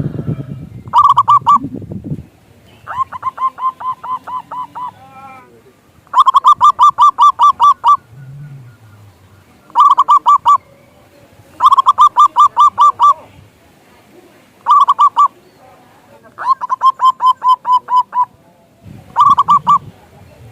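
Zebra dove (perkutut) cooing: about eight bouts of rapid, evenly repeated staccato coo notes, each bout one to two seconds long, with short pauses between.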